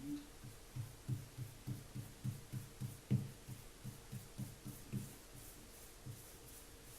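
Paint being applied to a patched plasterboard wall in quick back-and-forth strokes, a run of soft low thumps about three a second that stops about five seconds in.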